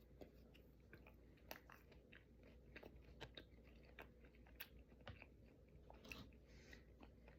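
Quiet chewing close to the microphone, with small, irregular crunches and mouth clicks.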